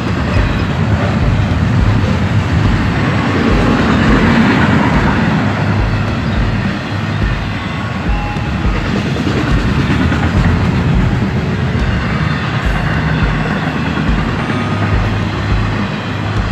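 Freight train rolling past: a steady rumble of wagons with a regular clickety-clack of wheels over the rail joints.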